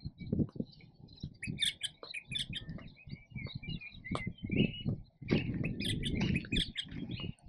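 Small birds chirping and twittering in quick, overlapping calls over a low, uneven rumble.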